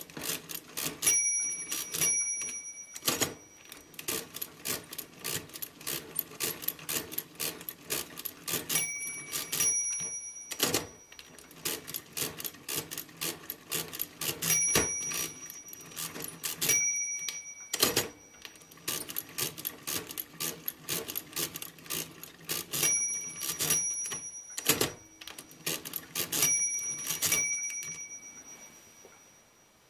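Facit C1-13 mechanical calculator being hand-cranked through a long division, 100 divided by 7: fast clattering clicks from the crank turns and carriage shifts. Short ringing tones come several times from its bell, which rings when a subtraction goes too far during division.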